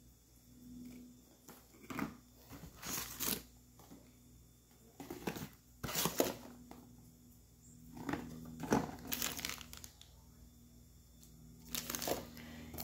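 Plastic packaging crinkling and rustling in several short, irregular bursts as wrapped products are picked up and handled.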